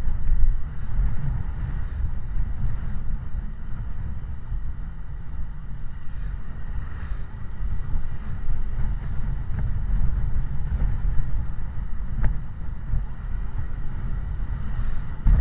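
Wind buffeting the microphone over a steady low rumble of a moving vehicle's engine and road noise in traffic.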